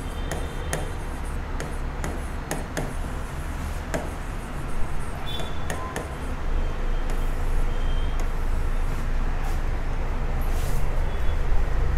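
Steady low background rumble with scattered light clicks and taps.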